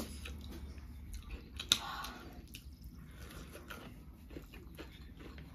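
A person chewing pork: irregular soft, wet mouth clicks and squishes, with one sharper click a little under two seconds in.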